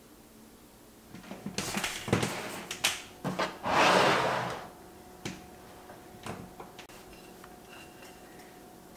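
A large ceramic dinner plate handled on a tabletop: a run of knocks and clinks, then a scraping slide about a second long, followed by a few light taps.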